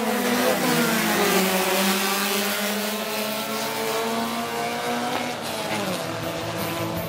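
A pack of Fiat 600 race cars with rear-mounted four-cylinder engines revving hard together as they accelerate away from the start on dirt. Several engine notes rise and fall over one another, easing off a little as the cars pull away.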